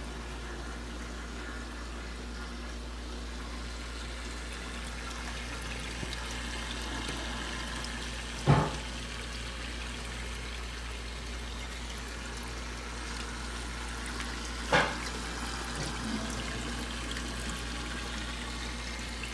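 Turtle tank water circulating with a steady trickle and a constant low hum, as from the tank's filter. Two sharp knocks stand out, about eight and fifteen seconds in.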